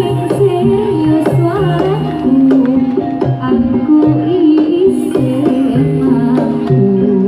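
Live Javanese jaranan ensemble music: kendang hand drums keep the beat under held, stepping melody notes from the gamelan.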